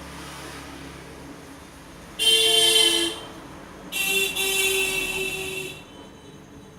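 Two vehicle horn honks, a short one about two seconds in and a longer one about a second later, over faint passing traffic.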